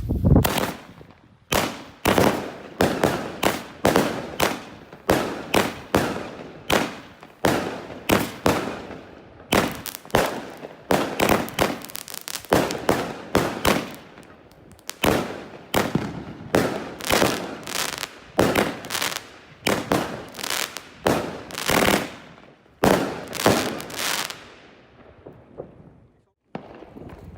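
Consumer fireworks from the Original Pro Box 3 assortment going off in a rapid string of loud bangs, about one to two a second, each with a short crackling tail. The shots die away about 25 seconds in.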